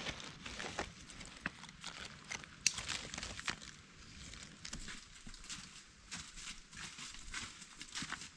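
Dry leaf litter and grass on the forest floor rustling and crackling, an irregular run of small crinkles and cracks, with one sharper crack about two and a half seconds in.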